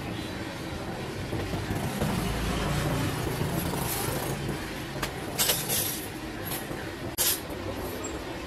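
Busy street background with a low rumble of passing traffic swelling and fading in the first half, then a few sharp clinks of steel utensils.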